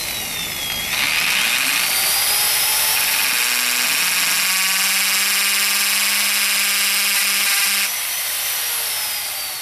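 Electric drill with a 23/64-inch bit boring a hole through the plastic cap of a 2-litre pop bottle. The motor speeds up about a second in, runs at a steady high whine, then slows and winds down near the end.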